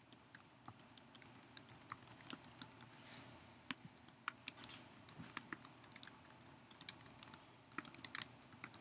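Faint typing on a computer keyboard: irregular runs of key taps, with a quick flurry shortly before the end.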